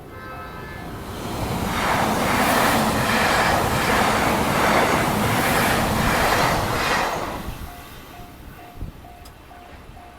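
A Japanese level-crossing warning bell rings in a steady repeating tone about twice a second while a JR Nippō Line train passes over the crossing. For about six seconds the train's loud rumble drowns out the bell, with a regular clack of wheels over the rail joints. As the train fades away the bell is heard ringing again.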